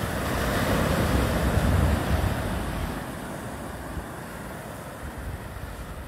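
Atlantic Ocean surf: a wave breaks and washes in during the first two seconds or so, then eases to a softer, steady hiss of water, with low wind rumble on the microphone.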